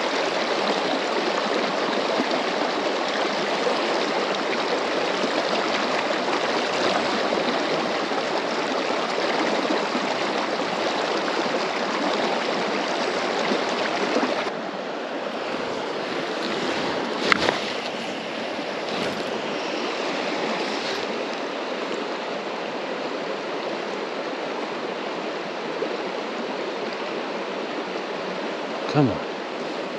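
River water flowing over a shallow stony bed, a steady rushing that drops to a quieter flow about halfway through. There is a sharp click a little after that and a brief falling sound near the end.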